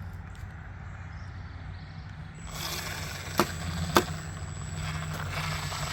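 Two sharp bangs about half a second apart as a red oak cabinet door is knocked while its hinges are being fitted, over a steady low hum and a power-tool whir that starts about two and a half seconds in.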